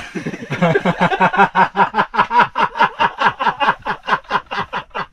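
A man laughing hard: a long, unbroken run of quick 'ha-ha' pulses, about six a second.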